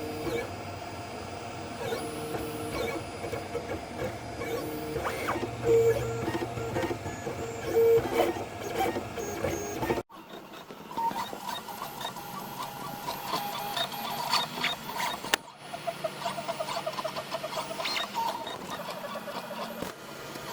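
3D printer running: its stepper motors whine in several shifting tones as the print head moves, with light clicks. The sound breaks off abruptly and resumes about ten seconds in and again about fifteen seconds in.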